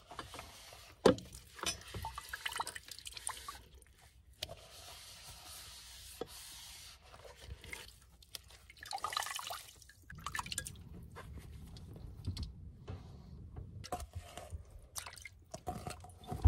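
Dishes being rinsed by hand under a running tap in a small sink: water running, splashing and dripping over a bowl and a stainless steel cup, with occasional knocks of the dishware, the loudest about a second in.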